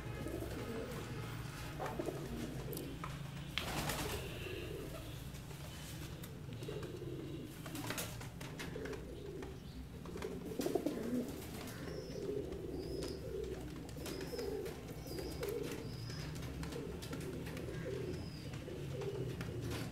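Sialkoti pigeons cooing over and over in a cage, a low murmuring coo that goes on throughout, with a few sharp knocks in the first several seconds.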